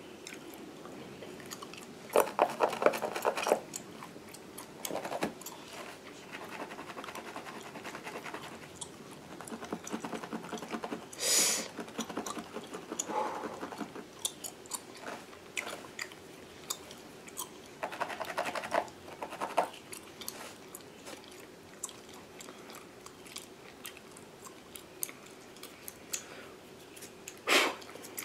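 Gum chewing and smacking, in short bursts of crackly clicks every few seconds, with fingernails and a comb scratching through a mannequin head's hair at the scalp.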